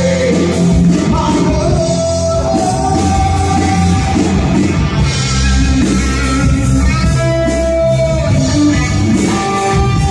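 Live rock band playing through amplifiers: electric guitar, electric bass and drum kit, with a man singing held notes into a microphone. The band plays steadily and loudly throughout.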